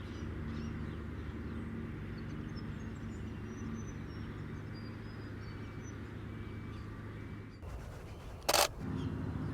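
Outdoor pond ambience: a steady low rumble with faint, high bird chirps. One short, sharp click near the end.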